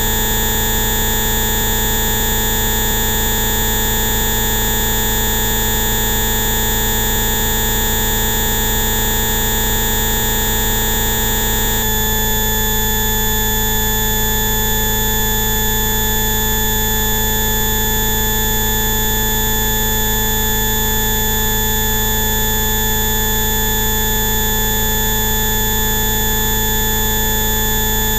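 Many steady electronic tones sounding together over a hiss, like a drone chord. The set of tones switches abruptly about twelve seconds in. This is a synthesized Rife-frequency complex played as 'bioresonance therapy' tones.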